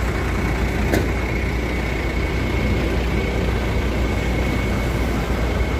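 Heavy diesel engines of a concrete mixer truck and a concrete pump truck running steadily: a low rumble with a thin, steady high whine over it. A single sharp click about a second in.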